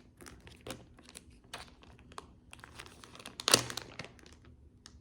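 Crinkling of a wax melt sample's packaging as it is handled and opened: irregular crackles, with one sharper crackle about three and a half seconds in.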